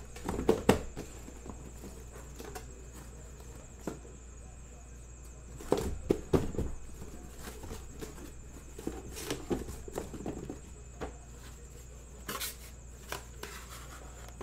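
Cardboard shipping case handled and opened by hand: scattered knocks, bumps and scrapes, the loudest a cluster of thumps about six seconds in.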